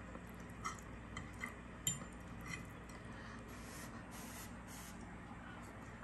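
Faint clinks and scrapes of a knife and fork on a ceramic plate, a few light clicks in the first couple of seconds, with a brief soft hiss near the middle.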